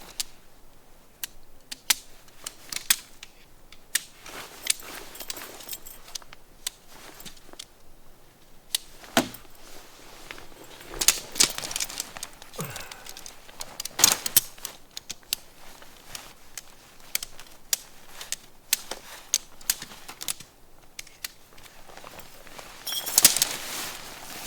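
Pitching a Hilleberg Soulo tent: irregular sharp clicks and knocks of the tent gear being handled, with a few heavier thuds and a quick flurry of clicks near the end.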